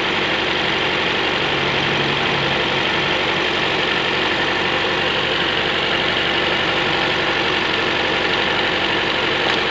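Toyota Allion's 1.8-litre four-cylinder petrol engine idling with a misfire, running steadily. The number three injector is unplugged and the idle does not change, the sign that cylinder three is the one misfiring.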